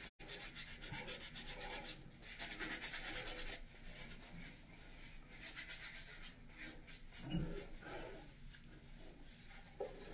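Hands rubbing together close to the microphone: quick, rhythmic swishing strokes of skin on skin, strongest in the first few seconds and fainter after. A soft low bump a little after seven seconds.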